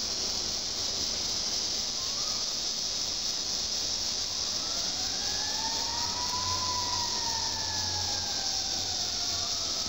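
Steady high-pitched chorus of crickets. About halfway through, a distant wail rises, then slowly falls away toward the end.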